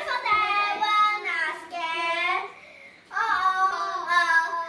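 Children singing or chanting, with a brief pause a little past halfway.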